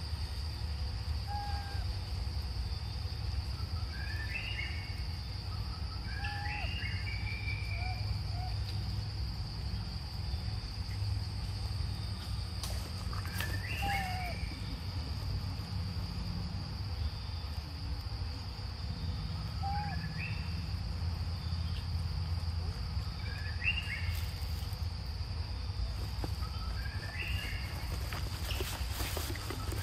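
Steady high drone of night insects such as crickets, over a low rumble, with short high chirping calls every few seconds. Near the end come rustling steps in dry leaf litter.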